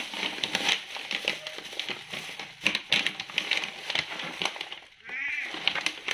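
Plastic bag of dry cat food crinkling and rustling as it is handled. Near the end a cat meows once, a short call that rises and falls.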